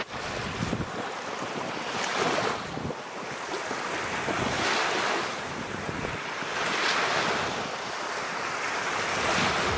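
Small Mediterranean waves breaking and washing up a sandy beach, the surf swelling four times, about every two and a half seconds.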